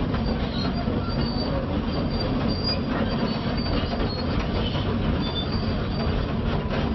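Quarry excavator climbing a steep stone pile: its diesel engine running steadily under load, with its steel tracks clanking and giving short high squeaks.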